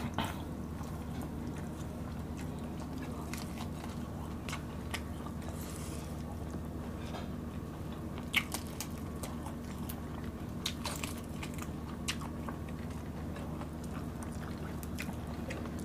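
Close-miked eating by hand: chewing, with scattered small clicks and crackles as fingers pull apart fried dried milkfish (daing na bangus), over a steady low hum. One sharper click comes about eight seconds in.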